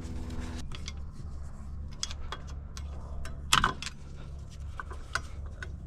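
Light metallic clicks and clinks of a truck's brake caliper and pads being handled and fitted, with one louder clank about three and a half seconds in. The caliper will not yet slide over the rotor because its pistons are not pushed back far enough. A low steady hum runs underneath.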